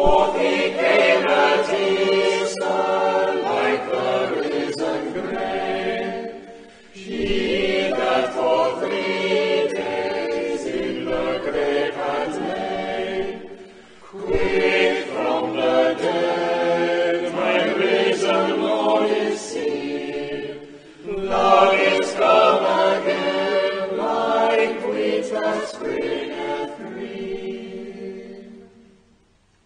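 Church choir of adult and children's voices singing in four phrases of about seven seconds, with short breaks between them and a fade to quiet near the end.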